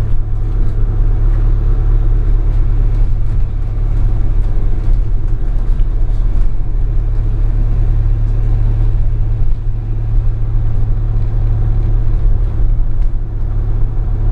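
Bus engine and road noise heard from inside the cabin: a steady, loud low rumble while the bus drives.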